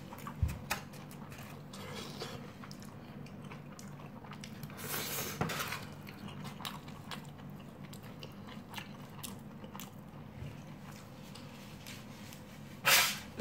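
A person eating rice from a styrofoam takeaway box: chewing and small clicks, with a plastic spoon scraping through the rice about halfway through. A short, loud noisy sound comes near the end.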